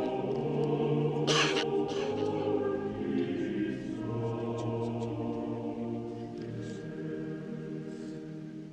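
Choir singing slow, sustained chords of sacred chant, fading slightly near the end.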